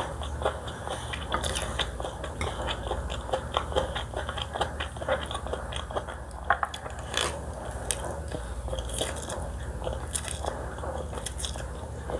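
Close-miked eating sounds: steady biting and chewing, full of small crunchy clicks and wet mouth noises.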